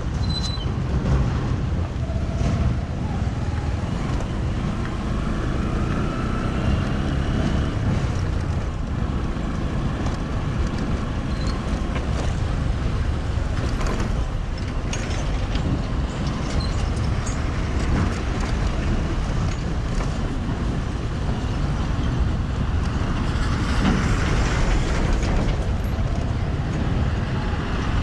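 Motor vehicle noise on a road: a steady low rumble of engine and tyres, with a few short knocks and a louder stretch near the end.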